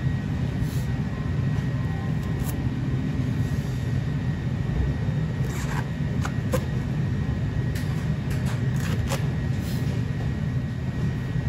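Kitchen knife cutting through a leek onto a plastic cutting board: a few sharp knocks in the middle, over a steady low rumble.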